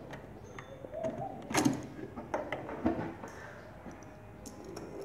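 Light clicks and knocks from the bobbin compartment of a Butterfly sewing machine as a new bobbin is fitted under the needle plate; the sharpest knock comes about a second and a half in, with a few smaller clicks after it.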